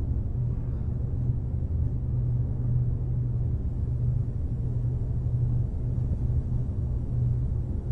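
Steady low hum and rumble, even throughout.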